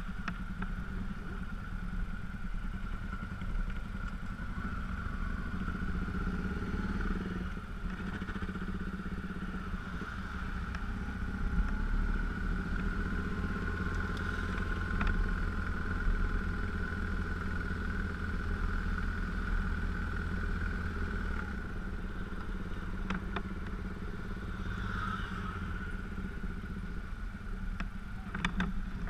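GS dual-sport motorcycle engine running steadily at low road speed, heard from the bike itself, with a few sharp clicks near the end.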